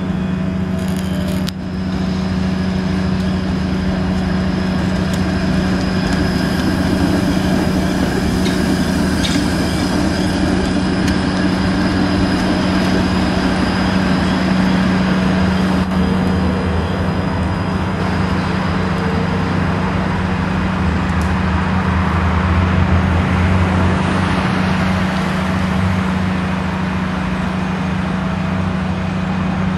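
Bombardier Flexity Outlook streetcar running past on its track amid road traffic, over a steady low hum, with a deeper rumble swelling for a few seconds past the middle.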